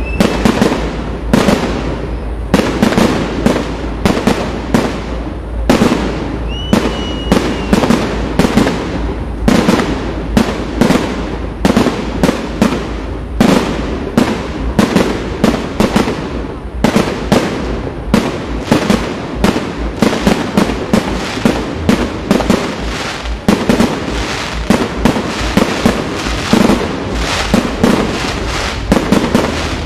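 Fireworks display: aerial shells bursting in quick succession, several bangs a second with no let-up. A brief whistle rises and falls about seven seconds in.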